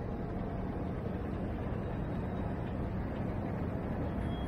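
Room noise of a large airport terminal hall: a steady low rumble with a hiss over it and no distinct events.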